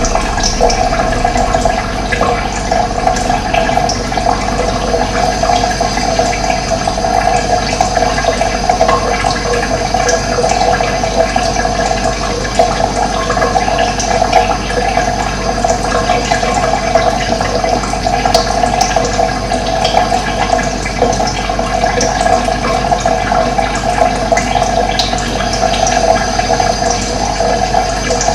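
Running water flowing steadily, an even, unbroken rushing.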